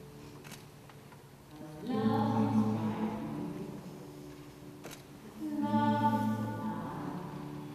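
Slow processional music with held sung notes, swelling about two seconds in and again about five and a half seconds in.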